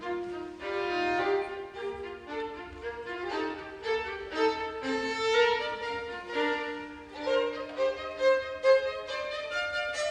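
A chamber string orchestra playing, with violins prominent in a busy run of short, changing notes and several lines sounding at once.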